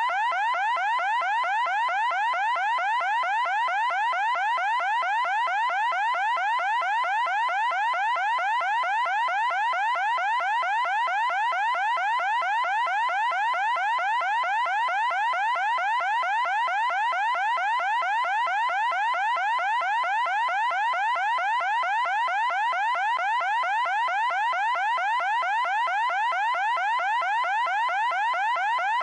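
Electronic alarm sounding a loud, unbroken run of short rising chirps, several a second, repeating without change.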